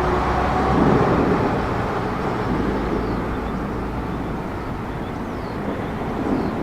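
Jet engine noise of an Airbus A320-232 with IAE V2500 turbofans on landing approach: a steady rumbling rush that eases a little mid-way and swells again near the end.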